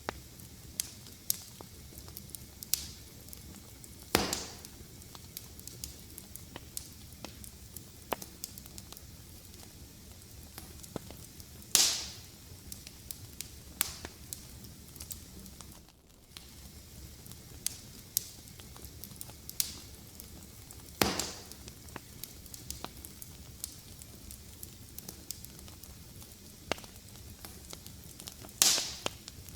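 Fireplace fire crackling: a steady low hiss with frequent small ticks and four much louder sharp pops spread through it.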